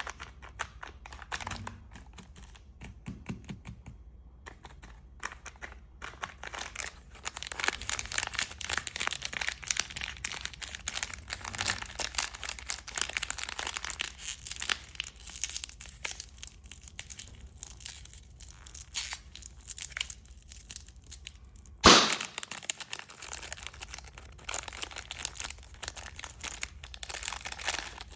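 Plastic candy wrappers being crinkled and torn open, close-up: sparse crackles at first, then a dense, continuous crinkling. One sharp loud snap stands out about three quarters of the way through.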